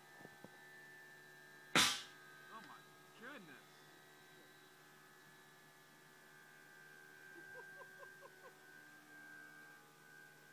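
A homemade tomato launcher fires with a single sharp bang about two seconds in, over a steady background hum.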